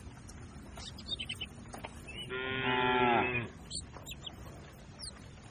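A cow mooing once, a single call of about a second starting a little over two seconds in, its pitch sagging as it ends.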